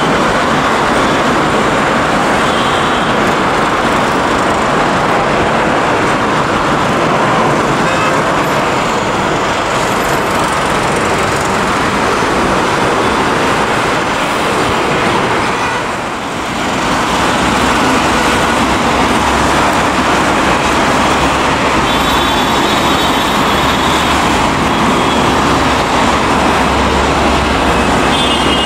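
Steady jet-engine noise of an airliner climbing out at takeoff power: first an IndiGo Airbus A320-family jet, then, after a brief dip in level about halfway through, a twin-engine Boeing 767.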